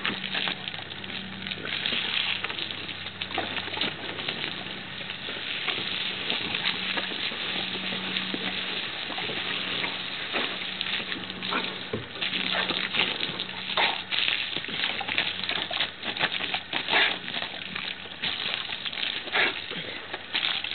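Garden hose spray hissing and pattering onto wood-chip mulch, with many splashy clicks and snaps as dogs bite at the stream.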